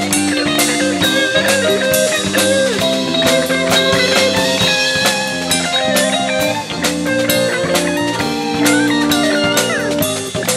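A jazz-funk fusion band playing live, with sustained and sliding melody notes over a steady drum-kit beat.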